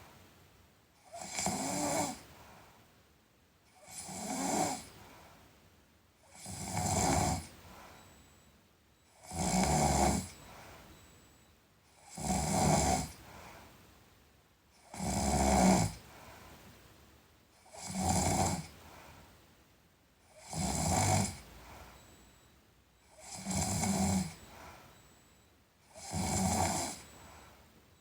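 A sleeping person snoring in a steady rhythm, one snore about every two and a half to three seconds, ten in all, each followed by a fainter breath.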